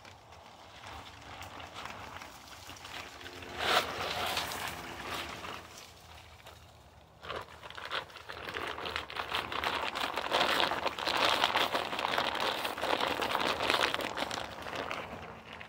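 Close rustling and crinkling, with a sharp sound about four seconds in and a longer, louder spell of crackly rustling through the second half.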